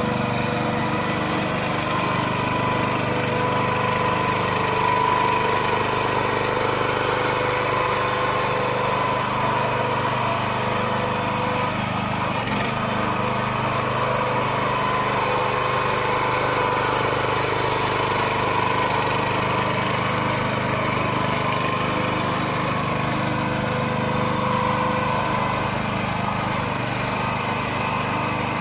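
Small 15 hp gasoline engine of a towable backhoe running steadily.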